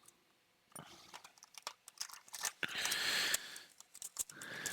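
Foil booster-pack wrapper crinkling as it is handled, with scattered small clicks and taps of trading cards being handled. The crinkling swells about three seconds in and again near the end.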